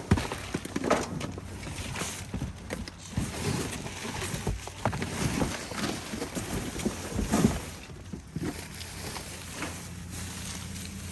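Rummaging through a dumpster: plastic bags rustling and discarded items knocking and clunking at irregular moments, with a steady low hum underneath.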